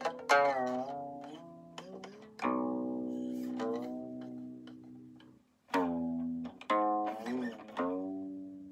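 Guqin played solo: about six plucked notes that ring on and fade, the left hand sliding along the strings so the pitch glides and wavers after several of the plucks.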